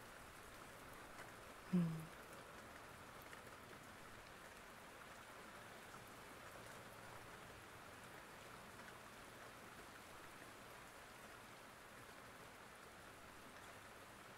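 Soft, steady rain ambience as a background bed, with one brief vocal murmur about two seconds in.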